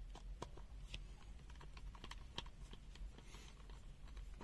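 Faint, irregular small clicks and taps of a screwdriver working the two screws on the underside of a plastic multimeter case.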